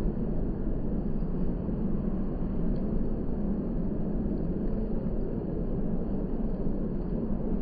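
Strong wind buffeting the microphone: a steady, fluttering low rumble.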